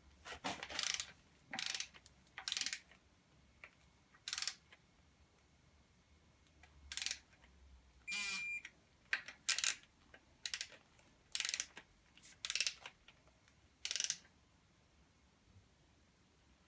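Ratchet wrench clicking in short strokes, about a dozen separate bursts, with one brief electronic beep about eight seconds in.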